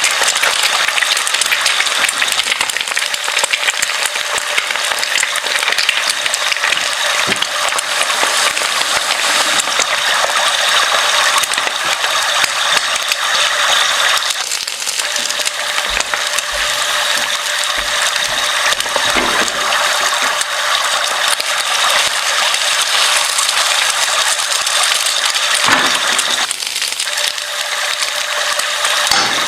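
Continuous fast mechanical rattling, like a hand-worked kitchen mechanism, briefly easing off about halfway through and again near the end.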